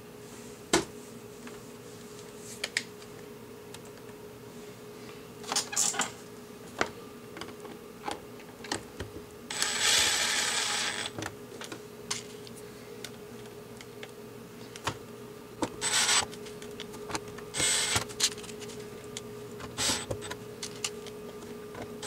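Hands handling the plastic case of an under-cabinet CD player radio and small parts: scattered clicks and light taps, with a few short scraping rustles, the longest about a second and a half near the middle.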